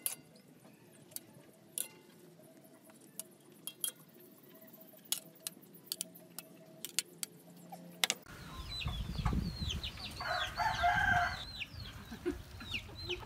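A metal spatula and chopsticks clink against a wok and a bowl as fried noodles are dished up, a few sharp clinks over a quiet background. About eight seconds in, chickens start calling: many short falling chirps and one longer call about ten seconds in, over a low rumble.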